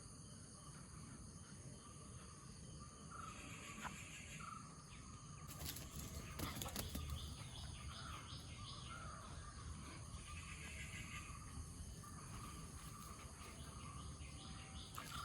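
Faint outdoor ambience with birds chirping here and there over a low rumble, and a few brief knocks.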